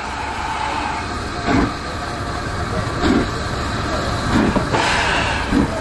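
LNER Thompson B1 4-6-0 steam locomotive No. 1264 running past tender-first: a steady train rumble with a heavier beat about every second and a half.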